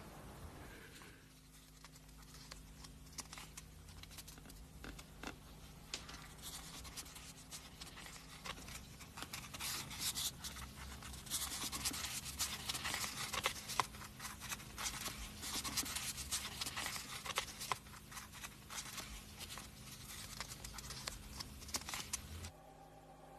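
Irregular scratching and rubbing, made of many short clicks, sparse at first and growing denser and louder about halfway through, over a faint steady low hum; it all stops shortly before the end.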